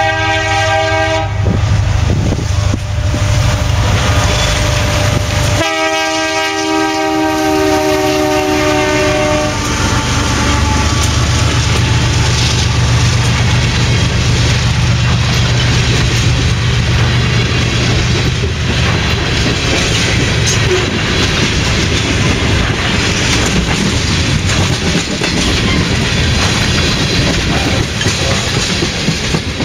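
BNSF oil train led by SD70MAC diesel locomotives: the multi-note air horn sounds and cuts off about a second in, then a second blast of about four seconds. After that the locomotive engines drone by and the tank cars roll past with a steady rumble of wheels on the rails.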